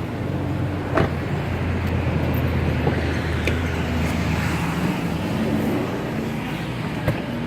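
Steady low engine and road noise of a motor vehicle, with a sharp click about a second in and another near the end.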